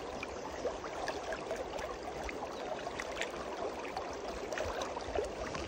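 Steady rush of a fast river current flowing past, with scattered faint ticks.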